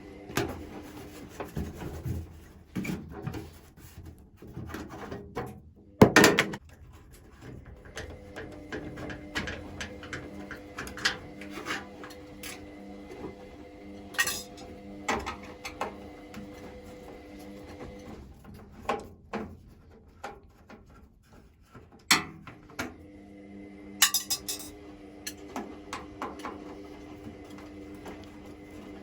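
Irregular metallic clinks, clicks and knocks of hand tools working on a washing machine's parts, with a sharp knock about six seconds in. A steady hum sounds under it for stretches, stopping around 18 seconds and coming back a few seconds later.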